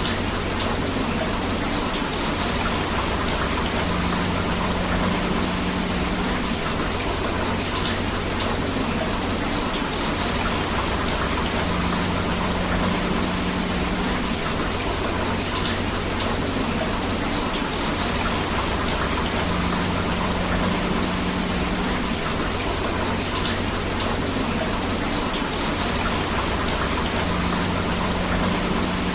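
Steady rain together with flowing river water, an even hiss with no let-up. A faint low tone comes and goes about every eight seconds.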